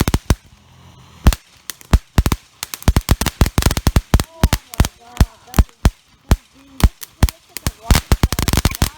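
Consumer fireworks going off in an irregular rapid string of sharp bangs and crackles, with a dense cluster of reports near the end.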